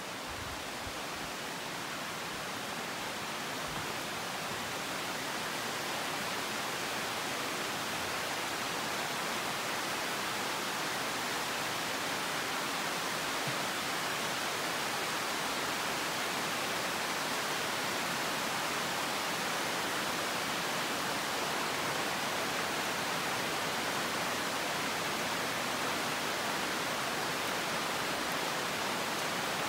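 Steady downpour of tropical rain on the rainforest canopy, an even rushing hiss that grows a little louder over the first few seconds and then holds steady.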